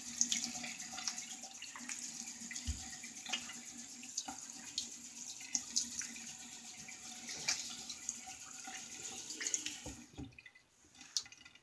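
Water running from a bathroom tap into a sink, with small splashes throughout; the flow stops about ten seconds in.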